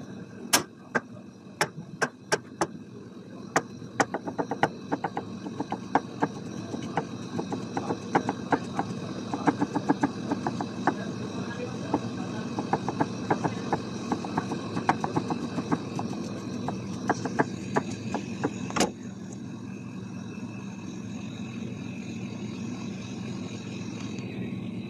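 Chef's knife slicing a cucumber on a plastic cutting board: a long run of quick, uneven taps as the blade strikes the board, several a second at times, stopping about 19 seconds in after one louder knock. A steady background hum runs underneath.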